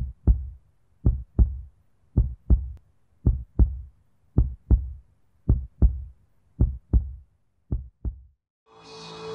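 Heartbeat sound effect: eight double thumps, lub-dub, about one beat a second. Near the end a steady noise with a low hum fades in.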